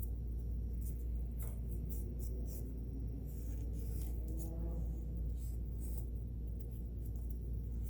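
Kenmore 1802 sewing machine mechanism turned slowly by its handwheel, giving light irregular clicks and rubbing as the parts move, over a steady low hum.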